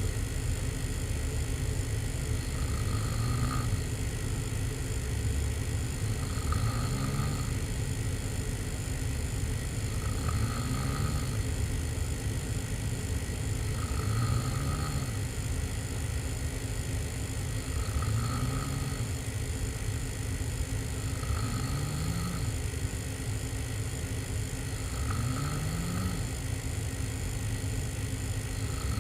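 A person sleeping on their back with the mouth open, snoring hard: a snore about every three and a half to four seconds, each rising in pitch, over a steady low rumble.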